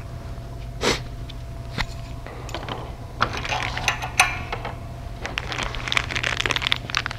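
Irregular metallic clicks and clinks as long bolts are handled and fitted through an aircraft engine's propeller flange, over a steady low hum. A few separate clicks come in the first two seconds, then denser runs of small clinks from about three seconds in.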